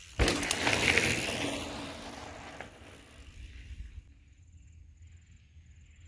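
A mountain bike landing a jump on sandy dirt with a sudden thump, then its tyres grinding through the loose sand as it rides past, fading away over the next two seconds.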